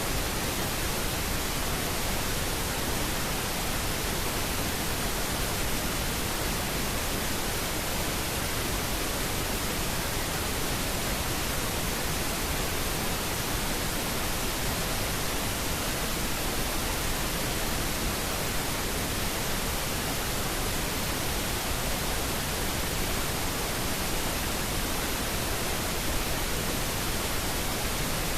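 Steady white noise, an even static hiss that does not change, used to mask subliminal spoken affirmations.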